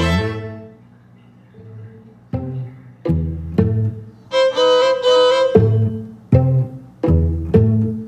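Background music played on string instruments: a run of low notes, each starting sharply and fading, with a higher violin-like line joining about halfway through after a short lull near the start.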